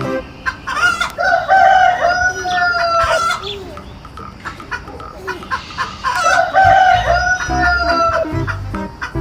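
A rooster crowing twice, about five seconds apart, each crow a long held call that drops slightly at its end.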